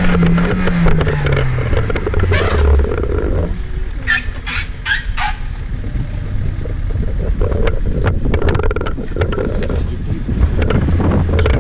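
Safari vehicle engine running and revving, its pitch falling over the first couple of seconds. About three and a half seconds in it settles lower, a few short sharp sounds come a second later, and then the engine picks up again.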